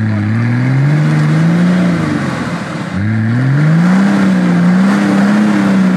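Off-road 4x4's engine revving hard in two surges. The pitch climbs at the start, falls back briefly a little under three seconds in, climbs again and holds high, then drops near the end.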